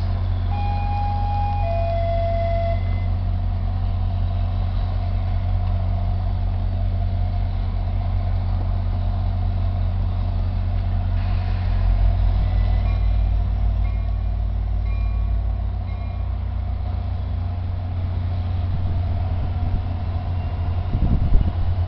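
NJ Transit GP40FH-2 diesel locomotive running with a steady low drone while the train stands at the platform, with a short two-note chime near the start. About twelve seconds in the engine gets louder as it throttles up and the train begins to pull away.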